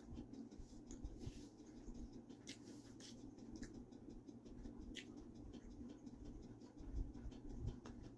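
Close-up eating sounds of a soft pumpkin muffin: quiet chewing with scattered small clicks.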